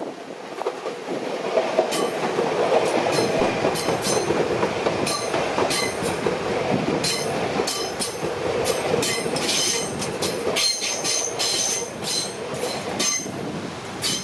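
Alstom X'Trapolis Mega electric multiple-unit train passing close by. A rumble builds over the first couple of seconds, then the wheels click over the rail joints in a quick, irregular series, easing off near the end as the train moves away.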